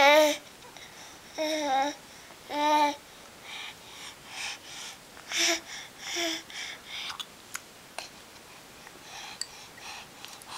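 Baby babbling close up: three short, high, wavering coos in the first three seconds, then a few breathy huffs with brief voiced bits, trailing off into small clicks.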